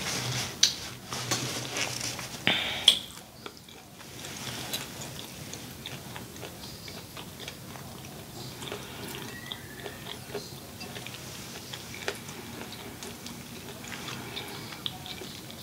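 Close-miked chewing and lip smacking on saucy seafood: quick wet mouth clicks, busier and louder in the first few seconds, then softer and sparser.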